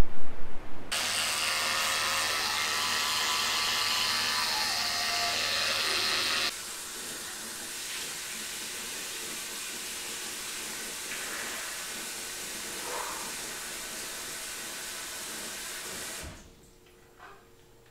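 Bathroom tap running into a sink: a steady rushing hiss, louder with a low hum beneath it for the first few seconds, then softer. It cuts off suddenly near the end as the tap is shut.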